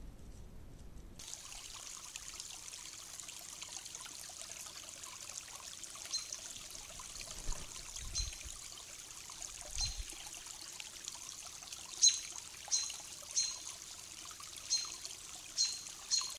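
Shallow rocky woodland creek trickling steadily. A bird adds short high chirps, about ten of them, coming closer together and louder in the last few seconds.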